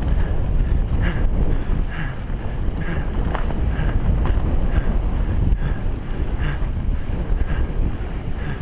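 Mountain bike being ridden along a dirt trail, recorded on a bike-mounted or rider-mounted action camera: steady wind rumble on the microphone and trail noise from the bike. A faint tick repeats a little under once a second.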